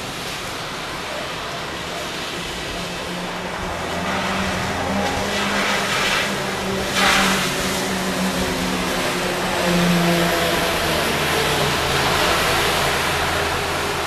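Motor vehicle noise: a steady hiss with a low engine hum that grows louder about four seconds in, and a short loud rush of noise about seven seconds in.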